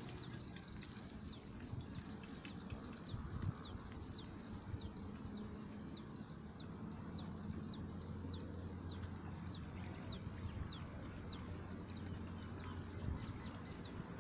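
Steady high-pitched insect chorus, like crickets, with many short falling chirps repeating through it, over a low rumble of wind on the microphone.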